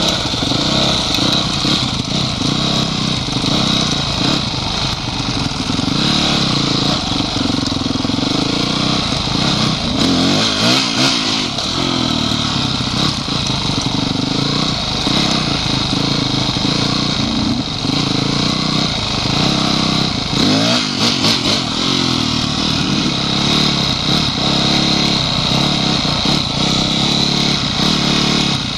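Honda CRF250X four-stroke single-cylinder enduro engine running steadily under way, with the revs rising and falling about a third of the way in and again about two-thirds in.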